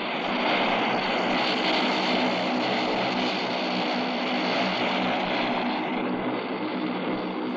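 Antonov An-30's twin Ivchenko AI-24 turboprop engines at takeoff power as the aircraft lifts off and climbs past: a loud, steady propeller drone with a rushing hiss, easing slightly near the end.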